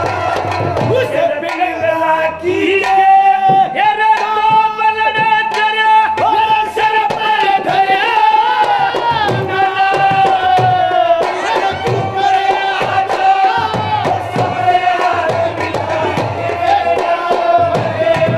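Haryanvi ragini folk music played without words: a held melody that slides between notes over quick, steady dholak drumming.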